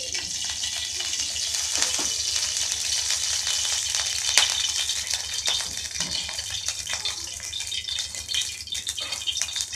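Cooking oil sizzling and crackling in a hot steel kadai, a steady crackle of many fine pops as the freshly poured oil heats.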